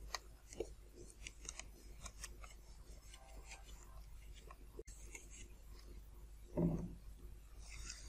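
Faint crackling and clicking of iron-on plastic covering film being pressed and worked onto a foam model-plane wing. A single dull knock comes about six and a half seconds in.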